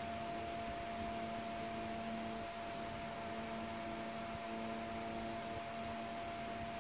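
A steady, unchanging high tone, like an electrical whine, over a constant hiss, with fainter lower tones fading in and out.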